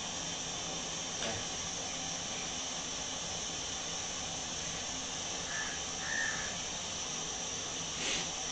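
A steady hiss, with a few short distant bird calls about halfway through.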